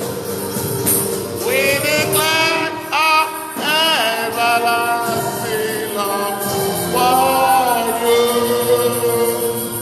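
Gospel worship song: voices singing a held, flowing melody over instrumental backing, with a jingling percussion such as a tambourine keeping the beat.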